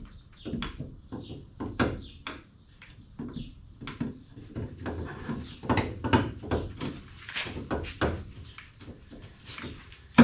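Metal clinks, knocks and scrapes as a Jeep TJ's freshly pressed U-joint assembly is worked back into place, with a sharp knock right at the end.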